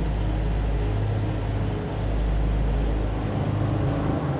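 Electric rack-railway train of the Gornergrat line crossing a viaduct: a steady low rumble with a faint hum, whose deepest part cuts off about four seconds in.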